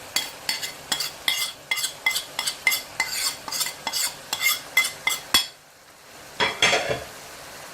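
A metal spoon stirring mince in a cooking pan, clacking and scraping against the pan about three or four times a second, over a light sizzle of frying. The clacking stops a little after five seconds in, and a short burst of it comes back near the end.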